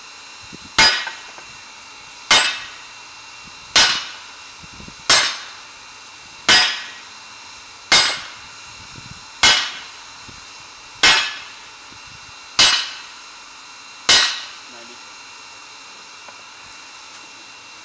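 Hammer blows on the red-hot steel of a zweihander blade lying on a thick round steel block anvil: ten slow, evenly spaced strikes, about one every second and a half, each a sharp clang with a short ring.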